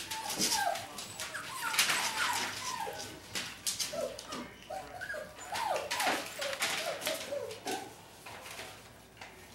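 Puppies whimpering and yipping in many short, high calls, with crackling of newspaper under their paws; the calls thin out near the end.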